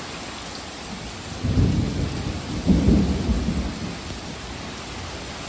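Thunder rumbling through steady rain: the rumble swells about a second and a half in, peaks twice and dies away about four seconds in, while the rain keeps up its even hiss.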